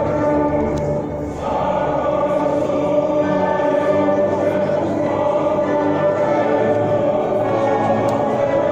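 Choir singing a sacred piece with long held notes and accompaniment; a short break about a second in, then a new phrase begins.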